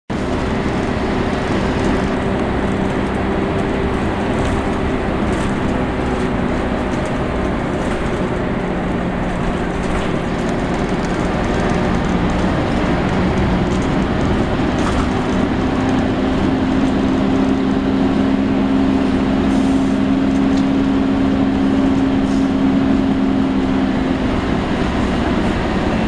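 Volvo B10BLE Wright Renown single-decker bus heard from inside the saloon while under way: its diesel engine and drivetrain run with a steady whine, the 'hoover' sound, over road noise. The whine's pitch shifts a few times as the bus changes speed, and light rattles come through now and then.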